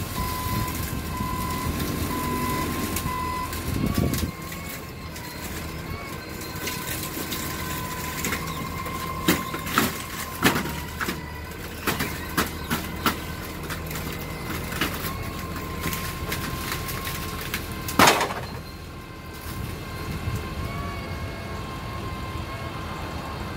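Propane-fuelled Hyundai forklift's engine running, with its reversing alarm beeping at times. A run of metal clanks about nine to thirteen seconds in and one loud clank about eighteen seconds in, as the forks take the bundled steel studs off the truck bed.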